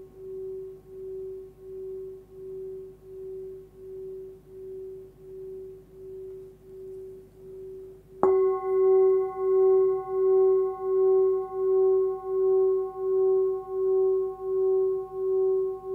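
A forged Sun Moon singing bowl, 13.8 cm across and tuned near 380 Hz (F#), rings with a slow pulsing wobble of about three beats every two seconds. About eight seconds in it is struck again and rings louder, with clearer higher overtones.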